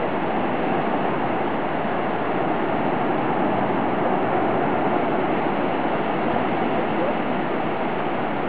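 Steady rushing noise of surf breaking on a sandy beach, even and unbroken.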